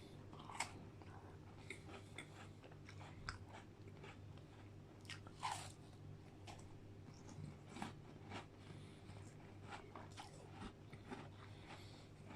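Close-miked chewing and crunching of McVitie's digestive biscuits with McFlurry ice cream: faint, irregular crunches and mouth clicks, a few louder ones, over a faint steady low hum.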